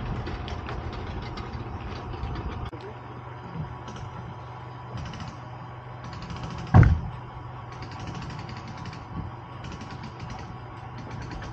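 Boat being hauled out of the water by a vehicle: a steady low engine hum with a louder rumble for the first few seconds that drops away about three seconds in, and one loud thump about seven seconds in.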